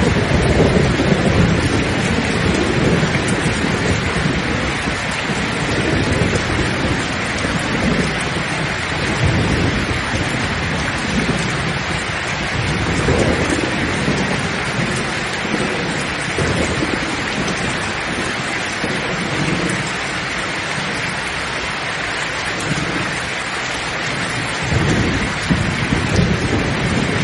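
Heavy rain falling steadily with thunder rumbling low underneath, the rumble swelling at the start and again near the end.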